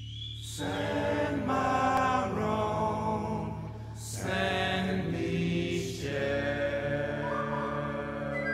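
Background music of chanting voices over a held low drone note. The voices come in about half a second in and start new phrases around four and six seconds.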